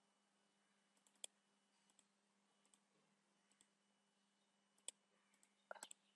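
Faint computer mouse clicks, scattered through, several in quick pairs like double-clicks, with a louder cluster near the end, over a faint steady low hum.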